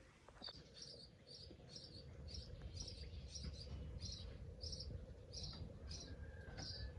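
A small bird chirping over and over in an even rhythm, about two short high chirps a second.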